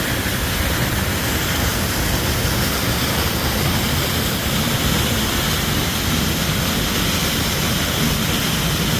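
Waterfall pouring: a steady, loud rush of falling water with no change through the stretch.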